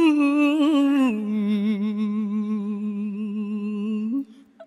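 Male voice chanting Khmer smot unaccompanied: one long drawn-out note with slow vibrato, stepping down in pitch about a second in and held until it stops near the end.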